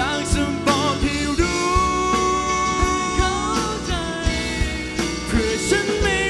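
Live rock band playing: a male singer on a microphone holds long notes with vibrato over electric guitars and regular drum hits.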